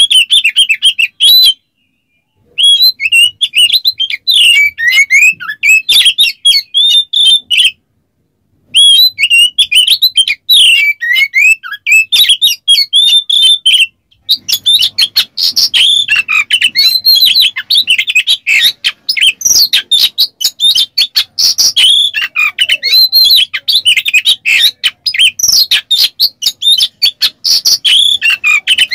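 Oriental magpie-robin singing a fast, dense song of whistled glides and harsh chattering notes, breaking off into silence twice in the first third.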